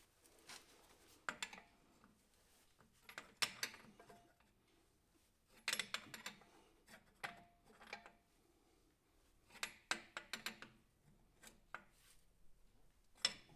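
Faint, scattered clinks and knocks of metal tools and parts being handled at a workbench, a few sharp taps every second or two, one of them ringing briefly.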